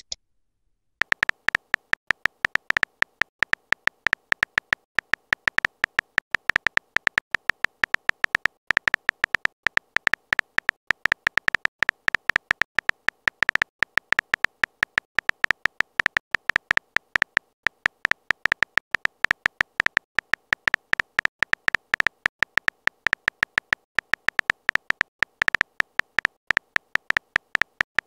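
Keystroke sound effects of a texting-story app as a message is typed out letter by letter: short, pitched clicks in a rapid, uneven stream, several a second, beginning about a second in.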